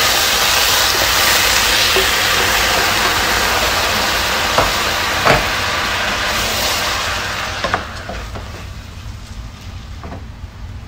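Rice sizzling loudly after being tipped into a hot pot of browned vermicelli, while it is stirred with a wooden spoon; the sizzle dies away about three-quarters of the way through. A few sharp knocks of the spoon against the pot come in the middle.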